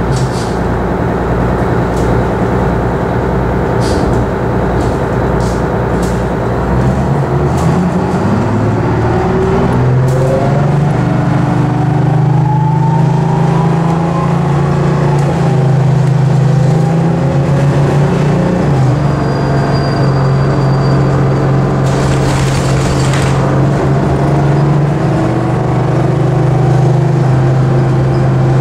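Detroit Diesel 6V92TA two-stroke V6 of an MCI Classic bus heard from inside the passenger cabin. The engine idles low, then a few seconds in the bus pulls away and the engine note rises as it accelerates before settling to a steady run. There is a brief hiss later on.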